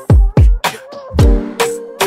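Background music with a beat: deep kick drums that drop in pitch, sharp high clicks on top, and held chords.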